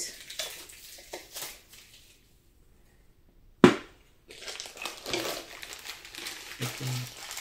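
Funko Soda packaging crinkling and rustling as a can is worked open and its contents handled, with a single sharp snap about three and a half seconds in, louder than anything else. The snap comes right after a brief quiet spell.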